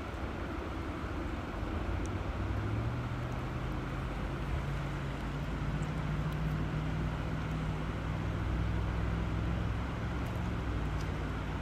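River water flowing steadily, with a low hum underneath that shifts pitch a few times.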